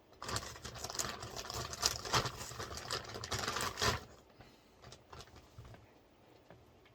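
Plastic packaging bags rustling and crinkling as modular power supply cables are pulled out, dense for about four seconds, then a few light clicks and taps.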